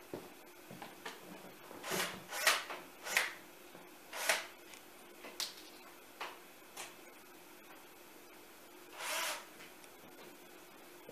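Workshop handling noises: a string of short scrapes and rubs of wood and tools being moved, most of them between two and five seconds in, then one longer scrape about nine seconds in.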